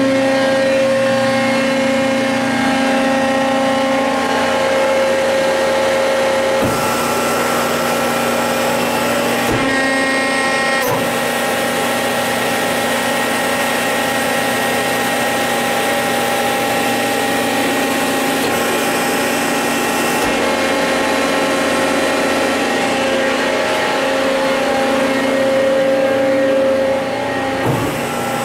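Accurpress 100-ton hydraulic press brake's electric motor and hydraulic pump running, a steady hum of several tones, with a few faint knocks.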